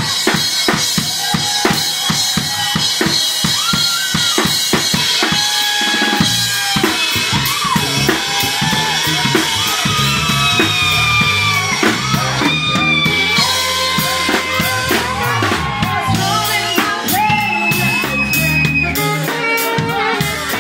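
Live band playing: a drum kit keeps a fast, driving beat throughout, with electric bass and keyboard; the low bass line fills out about six seconds in.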